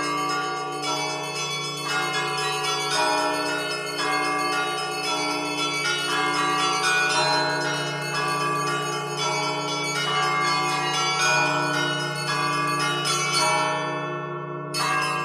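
Eleven church bells rung by a single ringer through hand ropes and foot pedals: the smaller bells strike in a repeating rhythmic pattern, their tones overlapping over the steady low hum of a large bell. Near the end the ringing briefly thins before a fresh loud stroke.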